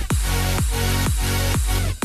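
Background electronic dance music with a deep beat about twice a second.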